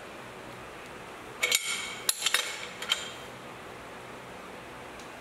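Steel wrench clinking against the overarm clamp bolts of a horizontal milling machine as the overarms are tightened. There is a handful of sharp, ringing metal clinks, bunched between about one and a half and three seconds in.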